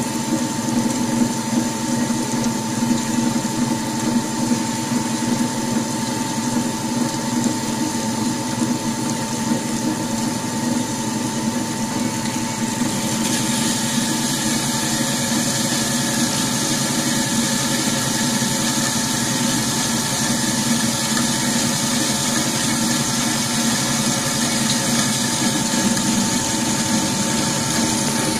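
GS260 automatic metal-cutting band saw running steadily as its blade cuts through a clamped workpiece, a constant whine over the drive's hum. About halfway through, a hiss of the blade in the cut grows louder and holds.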